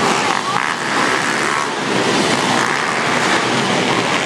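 Several pit bike engines running and revving together in a race, a dense steady mix, with engine pitch climbing about a second in.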